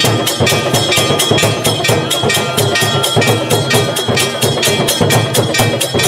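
Temple bells and a drum struck rapidly in an even rhythm of about six strokes a second, the bells' ringing tones held over the beat, as played during a Hindu aarti.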